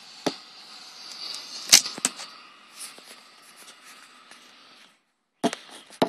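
Several sharp knocks and clicks of the recording camera being handled, loudest about two seconds in and again near the end, over the faint steady whine and hiss of an electric garden leaf vacuum running. The hiss cuts off abruptly about five seconds in.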